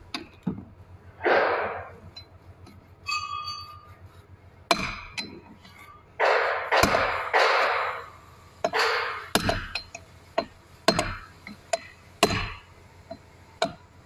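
Small ball-peen hammer tapping a steel part into a power-steering housing: irregular light metallic taps and clinks, most of them in the second half, between bursts of handling noise.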